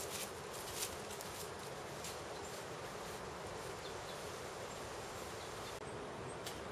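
Steady outdoor background noise with a hiss-like wash, broken by a few short rustling crackles in the first two seconds and once near the end.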